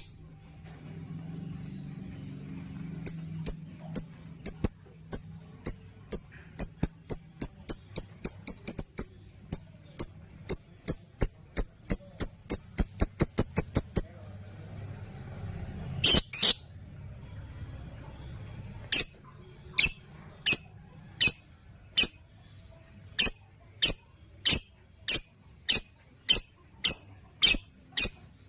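Lovebird singing its 'ngekek' rattle: a long run of short, shrill chirps at about three a second, quickening until they break off. After a harsher burst, a second, slower run follows at about two a second.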